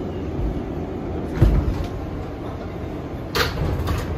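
R188 subway car's sliding doors working at a station stop: a heavy thump about a second and a half in and a short, sharp burst near the end, over the car's steady low rumble.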